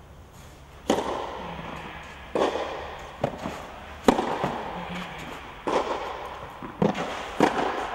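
Tennis ball struck with a racket in a rally on a clay court: sharp pops roughly every second and a half, with fainter knocks between, each ringing on in the echo of a covered hall.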